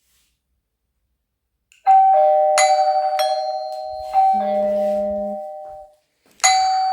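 TP-Link Tapo D230S1 doorbell and its hub sounding the electronic ring chime after the button press: a short melody of several sustained notes that slowly fade. It starts about two seconds in and starts again near the end.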